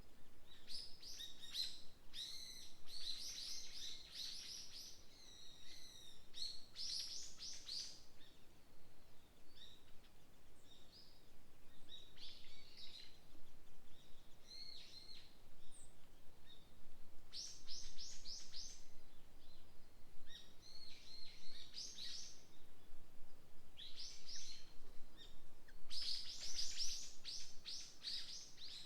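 Small songbirds singing in a forest, in repeated bursts of quick, high chirps and trills, with short gaps between phrases and several overlapping songs near the end.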